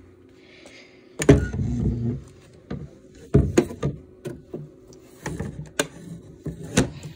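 Knocks, clicks and rustling from handling a claw machine's prize-chute door and cabinet while prizes are taken out, with the loudest knock about a second in.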